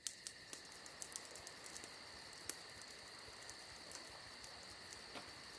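Faint, steady, high-pitched chorus of calling insects with a fast pulsing rhythm, broken by a few light clicks.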